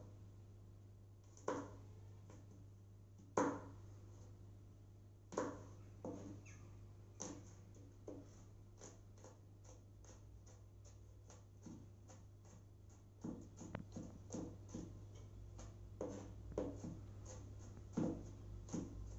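Chef's knife chopping garlic on a wooden cutting board: a few separate sharp knocks about two seconds apart, then quicker, lighter chopping at three or four strokes a second, in short runs near the end.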